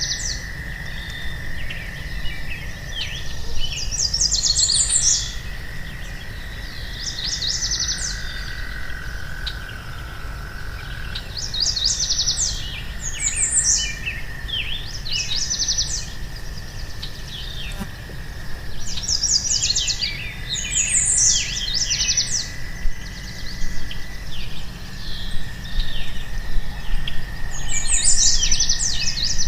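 Birds singing: bursts of fast high trills and chirps, a new phrase every few seconds. Beneath them run a steady thin high tone and a low rumble of background noise.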